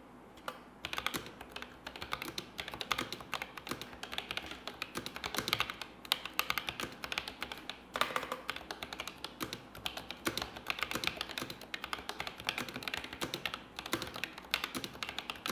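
ASUS ROG Claymore II mechanical keyboard with ROG RX linear switches and ABS keycaps being typed on: a fast, continuous stream of keystrokes with brief pauses, starting about a second in.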